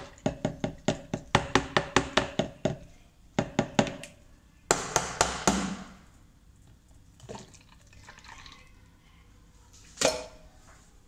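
A spoon clinking and scraping against a metal strainer over a juice pitcher, about four or five quick strokes a second, as juice is worked through the mesh. About five seconds in, juice is poured from a glass into the strainer, and near the end there is a single knock.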